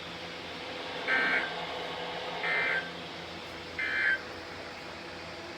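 An Emergency Alert System end-of-message signal on NOAA Weather Radio: three short bursts of warbling data tones, about a second and a half apart, over faint radio hiss. The bursts mark the end of the alert broadcast.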